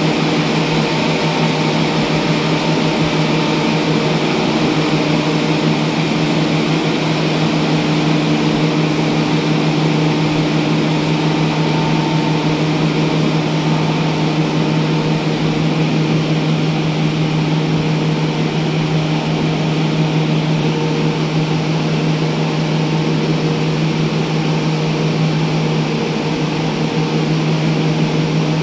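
A motor running steadily: a constant low hum over an even rush of noise.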